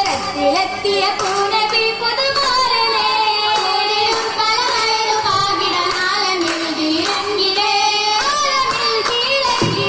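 Girls' voices singing an Oppana song together, with hand claps from the dancers.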